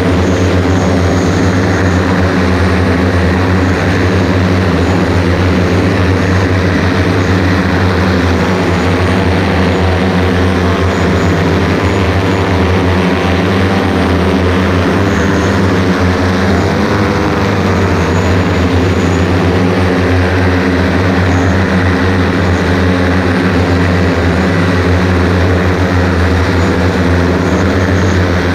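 Loud, steady drone of the electric motors and propellers of a one-seat EMAV multirotor eVTOL in flight, heard from close by on the aircraft, with a brief wavering in pitch about halfway through.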